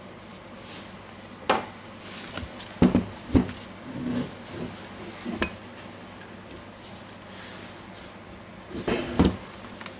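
Hard plastic and metal parts of a DeWalt DCH273 rotary hammer clicking and knocking as they are handled: the SDS chuck sleeve is worked onto the front spindle. A handful of sharp clicks come at irregular intervals, the loudest around three seconds in and near the end, with a light rattle in between.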